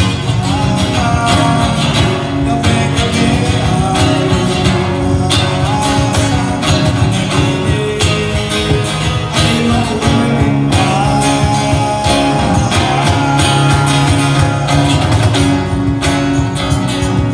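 A band playing live, led by acoustic guitar, with a wavering melody line held over a full, steady accompaniment.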